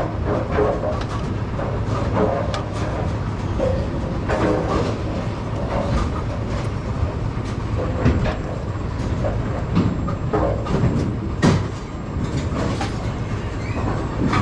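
Steady low rumble of pinsetter machinery, with repeated metal clanks and knocks throughout and one sharper knock about eleven seconds in.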